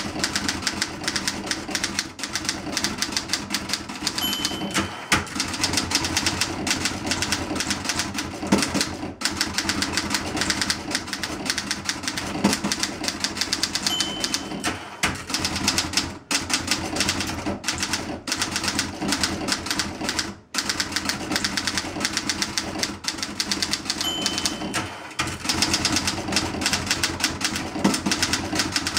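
A 1960 Olympia SG-1 standard manual typewriter typed on quickly: a steady rapid clatter of keys and typebars striking the platen, with a few brief pauses. A short ding, typical of the line-end bell, sounds three times about ten seconds apart.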